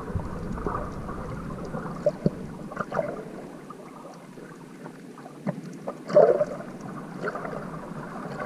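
Muffled water noise picked up by a camera filming underwater, with scattered small knocks and a louder short burst about six seconds in.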